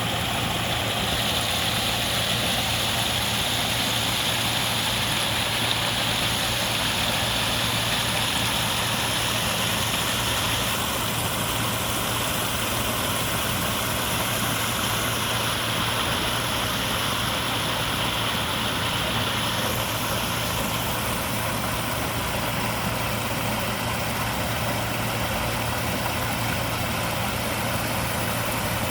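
Waterfall: water falling and rushing in a steady, dense roar.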